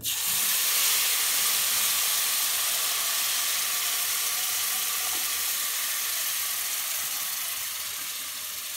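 Hot sweetened milk poured into a pot of semolina just toasted in oil, sizzling loudly the moment it hits. The sizzle starts at once and slowly dies down.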